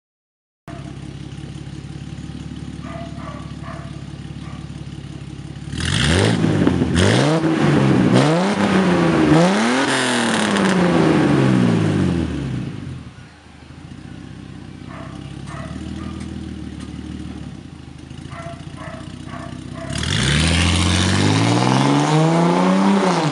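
Mercedes-Benz W124 260E's 2.6-litre M103 straight-six idling through a 3-inch stainless straight-through exhaust with no resonators. About six seconds in it is revved in a series of quick blips that rise and fall, then settles back to idle, and near the end the car accelerates away.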